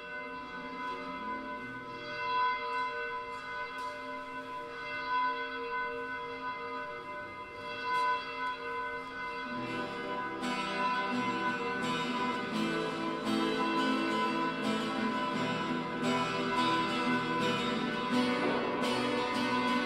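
Instrumental intro music: long, bell-like held tones at first, joined about halfway by plucked-string notes that grow fuller toward the end.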